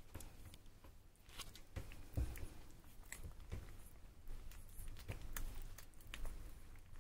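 Newborn puppies suckling at their mother's teats: faint, irregular wet smacking and clicking, with one louder thump about two seconds in.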